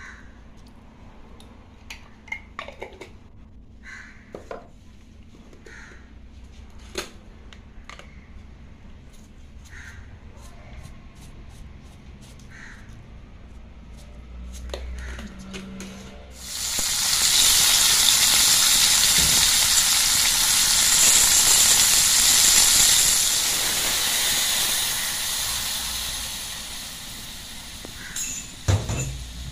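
Food sizzling in a hot metal wok: after some light clicks and taps, a loud steady sizzling hiss starts abruptly about halfway through and slowly eases off, followed by a couple of knocks near the end.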